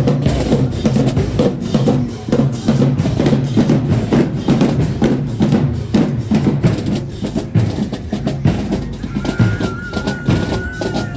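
High school marching band playing, driven by a dense run of rapid drum hits. A steady high held note comes in about nine seconds in.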